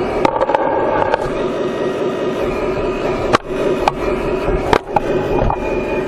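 Hydraulic pump of a 1:12 remote-control excavator model running with a steady whine while the bucket dumps snow into a model dump truck's bed. Several sharp knocks and clatters come through, the loudest about three and a half and about four and three-quarter seconds in.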